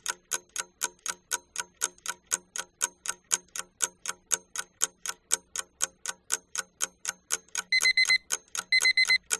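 Countdown-timer clock-ticking sound effect: fast, even ticks, about five a second. Near the end come two short bursts of high beeping, signalling that the time is running out.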